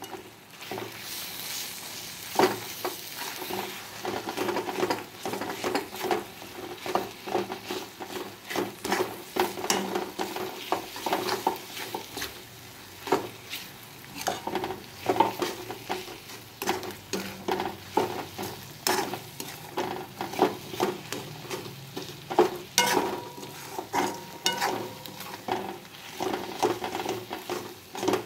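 Food frying and sizzling in oil in a metal kadai, with a metal spatula stirring it and frequently scraping and knocking against the pan.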